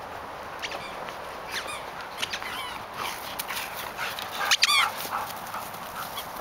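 Belgian Tervuren sheepdogs yelping and whining in excited play while running. Short, high yelps come every second or so, with a loud burst of yelps a little past the middle as the pack runs close by.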